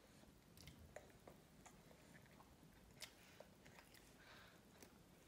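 Near silence with faint, scattered clicks and smacks of a toddler chewing soft finger food with her mouth open.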